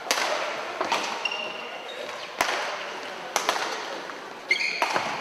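Badminton hall sounds between rallies: several sharp knocks, the loudest about two and a half seconds in, with short high squeaks of court shoes on the floor, echoing in the large hall.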